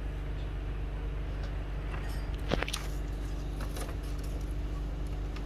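Thin wooden slats knocking against each other and the rim of a large aluminium cooking pot as they are stacked into a rack, with a few sharp knocks about two and a half seconds in and again near four seconds. A steady low hum runs underneath.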